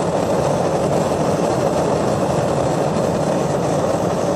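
Propane gas forge with a T-Rex burner running steadily at about half a bar, a constant rush of burning gas. It is turned low for the forge's first firing.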